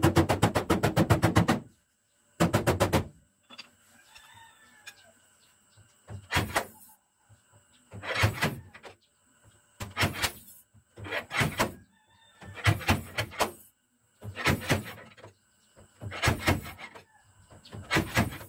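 Rapid hammer taps on a steel car bonnet for the first second and a half, then a dent-puller spot welder buzzing in short half-second bursts about every two seconds as its tip is fired against the panel to weld on pulling points. A chicken clucks faintly between the bursts.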